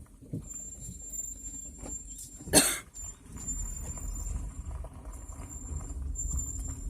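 Low rumble with light irregular taps and one loud, sharp clunk about two and a half seconds in: the strange noise from the rear wheel area of a 2007 BMW 116i.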